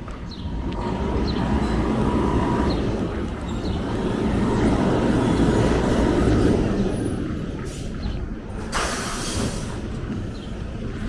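Garbage truck engine rumbling close by, getting louder toward the middle, with a loud hiss of air lasting about a second near the end.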